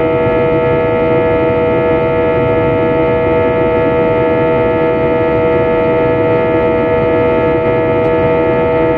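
Jet airliner cabin noise in flight: a steady engine drone with several strong held tones over a constant low rumble.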